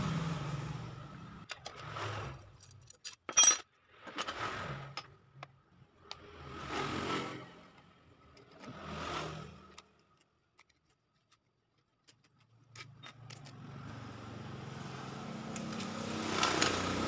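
Electric starter motor of a Honda Supra 125 being unbolted and pulled out of the engine by hand: a sharp metal click, scattered small clicks and several rustling, scraping handling noises. After a short silence, a steady low hum builds up near the end.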